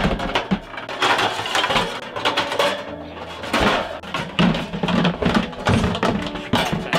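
Wire-mesh gerbil carrier cage rattling and clattering as it is handled and shaken, a rapid, irregular string of metallic clinks and knocks.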